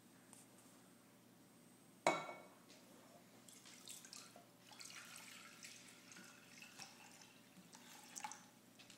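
Cookware set down with one sharp, ringing clank about two seconds in, then several seconds of water running and trickling at a kitchen sink.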